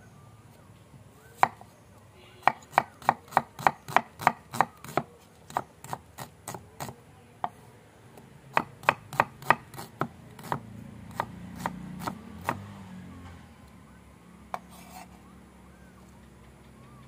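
Kitchen knife chopping a red onion on a wooden cutting board: runs of sharp knocks, about three to four a second, in two main bursts with scattered single strokes between them.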